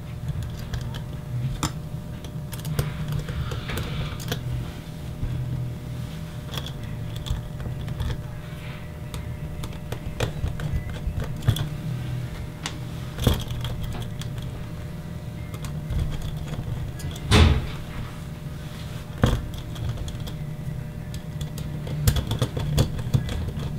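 Small metal screws and a servo block being handled and fitted by hand on a tabletop: scattered light clicks and taps, with one louder knock about two-thirds through, over a steady low hum.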